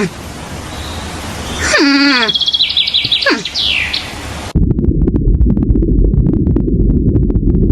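Animal calls over a hiss: a falling pitched call and high chirps. About halfway through they cut off suddenly, giving way to a low rumbling noise with crackles.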